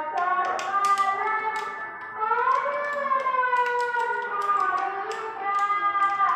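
Background music with a long, wavering melody line, over sharp tapping clicks.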